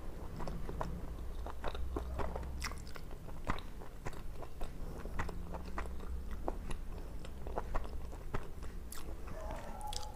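A person chewing and biting food close to the microphone, with many irregular sharp mouth clicks and smacks.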